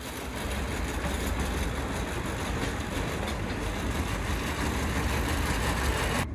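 Miniature railway locomotive's engine running as the train rolls slowly past, a steady rumble that grows slightly louder as it nears.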